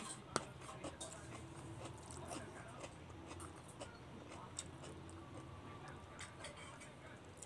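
Quiet eating sounds: a fork clicking and scraping against a plate while picking up noodles, with soft chewing. One sharper click comes just after the start.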